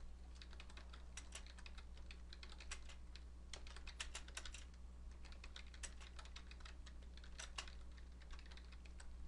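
Typing on a computer keyboard: a run of faint, irregular key clicks with short pauses, over a low steady hum.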